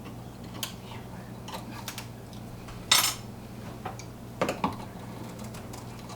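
Small clicks and clinks of hand tools and electrical hardware being handled, with one louder short clatter about three seconds in and a few knocks a second and a half later, over a faint steady hum.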